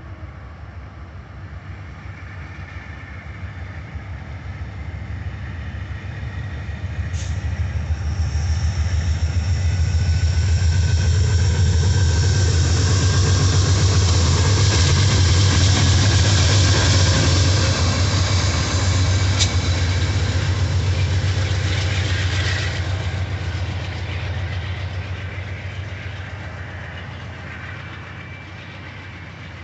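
Amtrak diesel locomotive and passenger coaches passing close by: the engine's deep rumble and the rolling noise of wheels on rail build from about six seconds in, are loudest through the middle, and fade as the coaches roll past. A couple of sharp clicks sound from the wheels on the rails.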